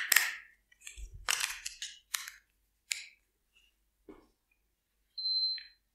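Short clicks and rattles of a plastic TV remote being handled and its buttons pressed, followed near the end by a brief high-pitched beep.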